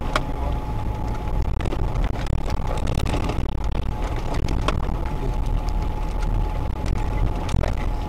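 Off-road vehicle driving along a rutted dirt forest track, heard from inside the cab: steady engine and road rumble with frequent short knocks and rattles over the bumps, and a thin steady whine underneath.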